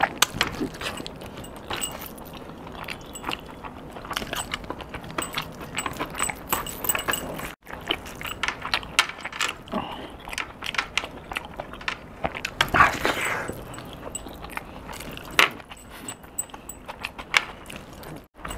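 Close-up eating sounds: wet chewing and mouth clicks as rice and chicken are eaten by hand, mixed with the clinking and jangling of heavy metal bracelets and rings moving with the hand.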